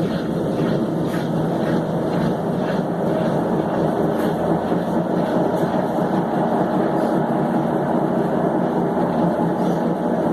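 Consul Maré 7.5 kg washing machine in its spin cycle, running with a loud, steady rumble and faint regular ticks in the first few seconds. This is excessive spin noise, which the owner says calls for a part to be replaced.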